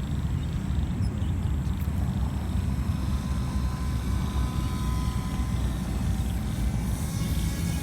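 Strong wind buffeting the microphone with a rough, choppy rumble, and the faint whine of an RC paramotor's propeller motor coming in about three seconds in and slowly rising in pitch.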